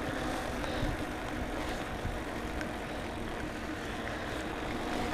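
Steady low rumble and hiss of a bicycle rolling along a wet canal towpath in the rain.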